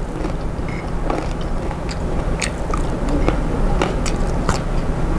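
Close-miked chewing and crunchy biting of raw salad vegetables (lalapan) eaten by hand, with many scattered sharp mouth clicks over a steady low hum.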